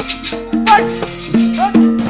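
Gamelan accompaniment for wayang kulit: metallophones play a steady melody of struck notes, with a bright, sharp metallic clash about half a second in.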